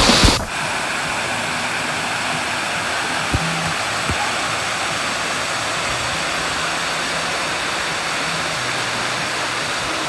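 Steady rush of a small waterfall cascading over rocks into a pool. It opens with a brief loud splash of water falling right on the microphone, which cuts off within the first half second.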